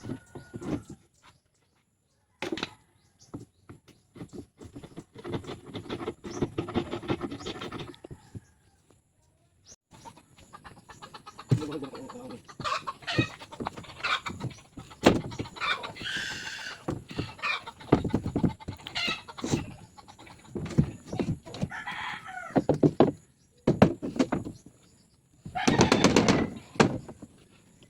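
A rooster crowing several times and chickens clucking, over repeated light tapping and knocking.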